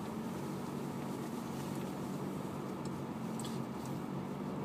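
A car's engine and tyres heard from inside the cabin while driving: a steady low hum.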